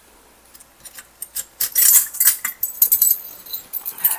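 A ring of metal measuring spoons jingling and clinking as it is handled, in a quick cluster of bright clicks that is loudest about halfway through.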